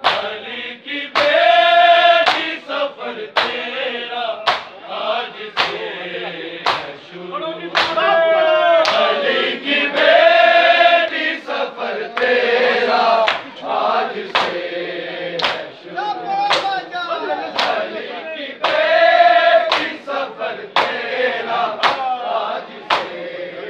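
A crowd of men chanting a Shia noha (mourning lament) together. Their singing is punctuated by sharp, unison slaps of matam, open palms striking bare chests roughly once a second.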